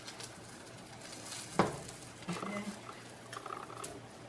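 Egg omelet frying quietly in a nonstick pan while a plastic spatula scrapes and slides under its edges. There is one sharp knock of utensil or pan about a second and a half in.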